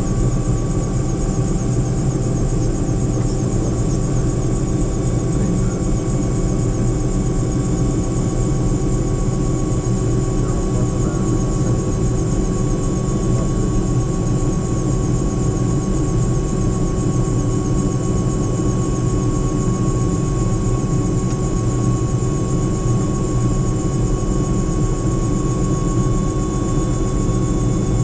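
Helicopter turbine engine and rotor running steadily: a constant low drone with a steady high whine over it.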